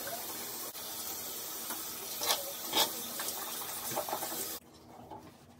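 Steady hissing noise with two short, sharp sounds about halfway through, dropping to a faint hiss near the end.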